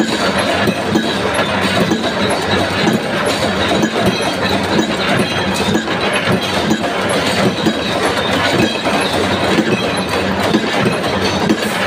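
Gear-driven mechanical punch press running steadily, its ram stamping washers out of a steel strip with a continuous clatter of repeated strokes and gear noise.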